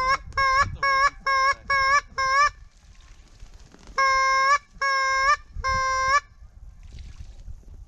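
A hand-blown duck call sounding a quick run of about seven short quacks, then, after a pause, three longer drawn-out quacks, all at the same steady pitch. The hunter is calling to passing ducks to turn them in.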